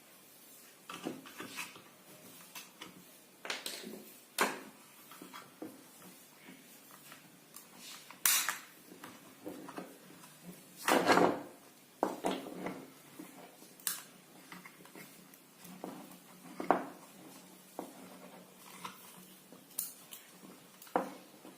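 Scattered clicks and knocks of small hard parts being handled and set down at irregular intervals, with a few louder knocks.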